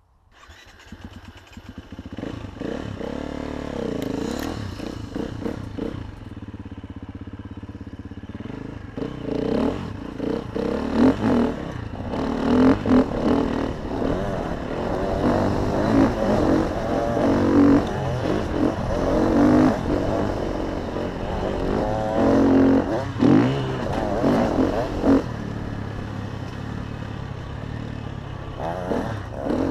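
KTM dirt bike engine revving hard and easing off again and again as it is ridden round a motocross track, its pitch rising and falling with the throttle, heard close up from a handlebar-mounted camera.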